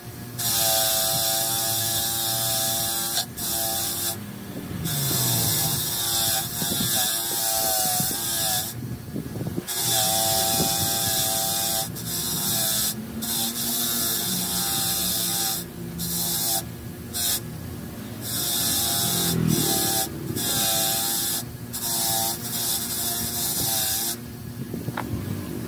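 Electric bench grinder running while small metal parts of a starter motor are pressed against its spinning wheel, giving a hissing grind in spells of a few seconds with short breaks between contacts.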